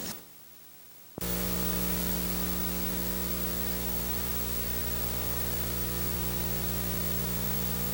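Steady static hiss with a low mains hum from a blank stretch of old videotape, starting suddenly about a second in after a moment of near silence.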